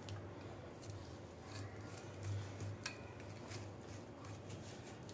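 Faint, scattered clicks and light scrapes of a blade scoring a sheet of hot peanut-and-makhana chikki into pieces on a flat platform, with one sharper click a little before the middle.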